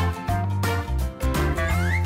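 Background music with a steady beat and bass notes, with a tone sliding upward in pitch near the end.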